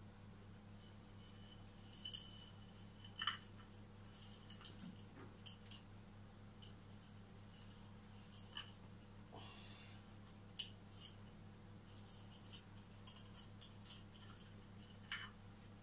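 Thin bonsai wire scraping and ticking against a small glazed ceramic pot as it is threaded through the drainage holes, with a few sharper clicks about 3 s in, about 10 s in and near the end. A steady low hum lies underneath.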